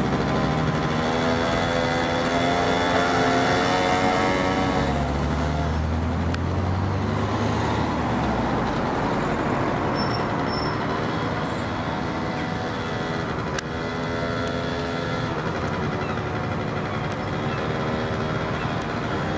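Traffic going past on a road: motor vehicle engines, one shifting in pitch during the first few seconds and another about two-thirds of the way in, over a steady background rumble.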